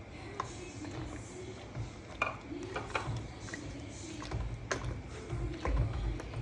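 A spoon giving scattered light clicks and taps against a cooking pot, over a faint low rumble that grows louder about two-thirds of the way through.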